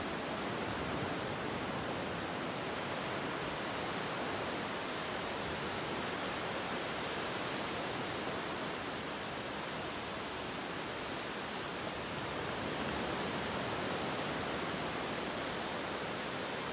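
A steady, even rushing hiss with no breaks or swells.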